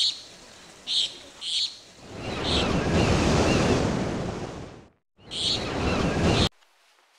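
Birds chirping in short high bursts, then a rush like a wave surging onto a shore that swells and fades out about five seconds in. The chirps and rush return briefly and cut off abruptly near the end.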